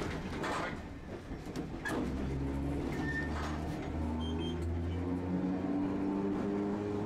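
Tosaden streetcar running, heard from inside the car: a steady low hum of the traction motors and running gear, with a few sharp clacks of the wheels over rail joints.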